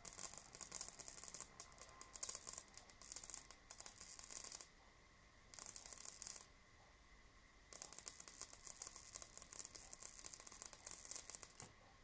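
High-voltage sparking crackling at a homemade ion wind blower, in three spells: about four seconds, a short one near the middle, then about four seconds more. A faint steady high whine runs underneath.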